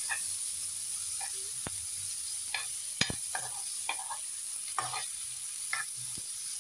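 Tomatoes, onions and green chillies sizzling in oil in a metal frying pan, with a metal spoon scraping and clicking against the pan now and then as they are stirred; the sharpest click comes about three seconds in.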